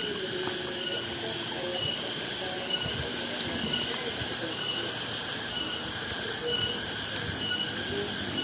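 Cicadas (tonggeret) chorusing in the afternoon: a high, shrill buzz that swells and breaks in a steady pulse a little faster than once a second.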